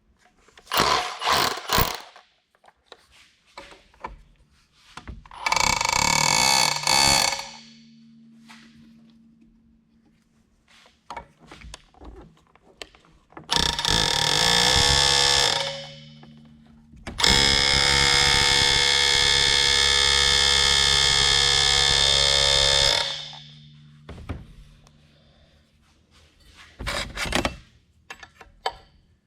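Handheld power tool run in bursts with a steady buzz, three to six seconds each, the longest near the middle, with short metallic clatter and taps in between.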